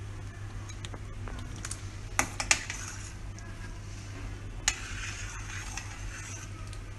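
A spoon stirring soup in a stainless steel pot, with a few sharp clinks of the spoon against the pot about two seconds in and again near five seconds, over a steady low hum.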